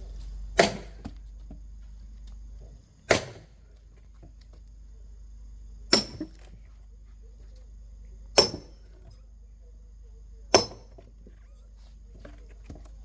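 Axe blows splitting logs for firewood: five heavy chops, about one every two and a half seconds.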